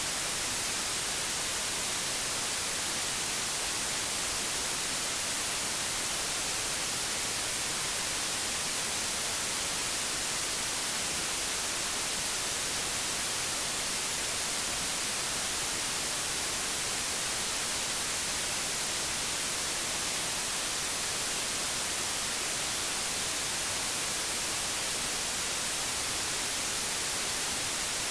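Old television static: a steady, even hiss, strongest in the high frequencies, unchanging throughout.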